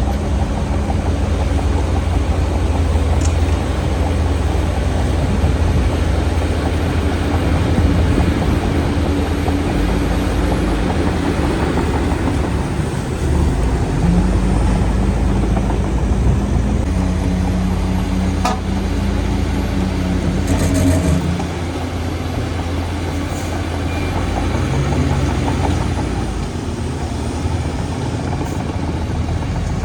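Diesel engine of a Shantui DH17C2 bulldozer running steadily while it pushes soil. Its pitch shifts several times in the middle, and it eases off slightly about two-thirds of the way through.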